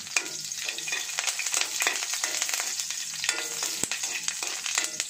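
Chopped garlic frying in a stainless steel wok, with a metal spatula clicking and scraping against the pan as it is stirred.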